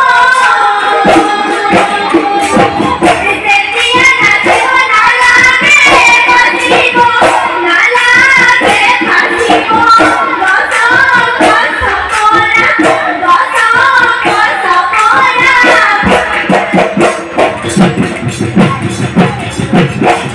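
Group of girls singing a Bihu song over a stage sound system, with hand clapping. About sixteen seconds in, the singing drops away and the dhol drums carry on a fast rhythm.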